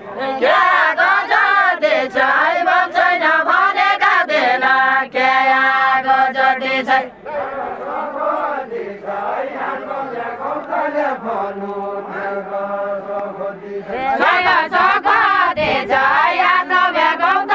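Deuda folk song chanted in unison by a group of men and women with arms linked. The singing drops quieter about seven seconds in and swells loud again a few seconds before the end.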